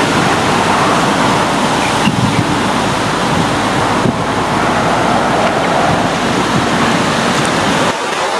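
Steady rushing noise of wind blowing over open river water.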